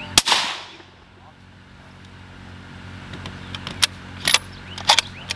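A single suppressed rifle shot from a 6.5 Creedmoor bolt-action rifle fitted with a 3D-printed Inconel suppressor: one sharp report just after the start, with an echoing tail that fades over about half a second. A few short metallic clicks follow near the end as the bolt is worked.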